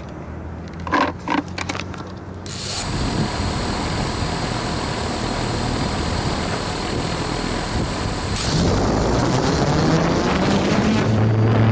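DJI F450 quadcopter's four electric motors and propellers. After a few clicks and knocks in the first two seconds, the motors start about two and a half seconds in with a steady high whine. They grow louder near eight seconds and rise in pitch near the end as the throttle comes up for takeoff.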